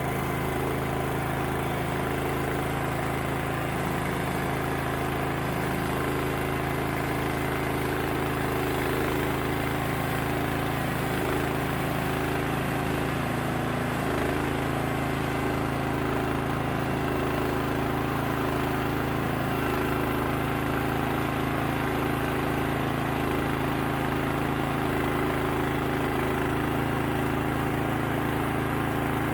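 Timbery M100 band sawmill's engine running at a steady speed, an even mechanical hum with no change in pitch or load.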